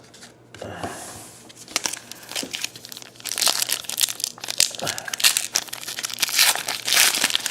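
Plastic wrapper of a basketball trading-card pack being crinkled and torn open. The dense crackling grows much louder about three seconds in.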